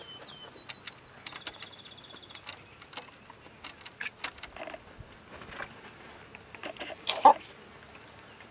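A flock of hens clucking softly amid scattered sharp clicks, with a thin, high, fast trill about a second in. The loudest cluck comes about seven seconds in.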